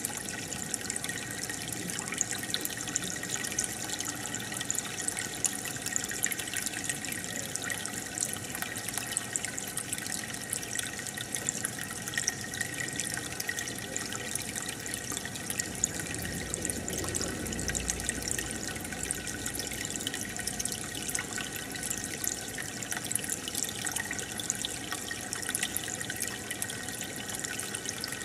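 Aquarium aeration: a steady stream of air bubbles rising and breaking at the water surface, making a continuous bubbling, trickling sound with many small crackling pops.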